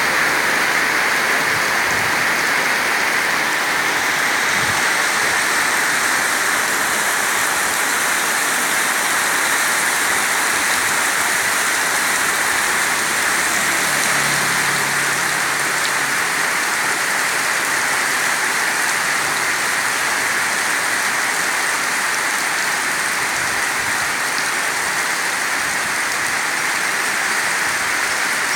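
Downpour of heavy rain, a steady loud hiss with no let-up.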